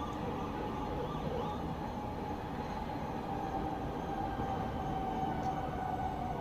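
Distant town ambience at night: a steady low rumble of far-off traffic, with one long tone slowly falling in pitch, like a faraway siren or train.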